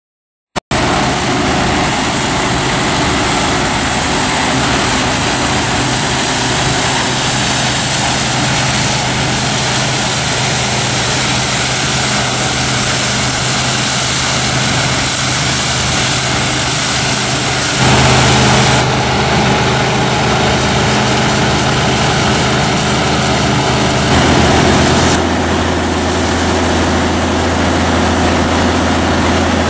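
Claas Dominator 98 SL Maxi combine harvester running steadily under load, its diesel engine and threshing gear making a loud, even hum. The sound changes abruptly twice, about two-thirds of the way through and again near the end.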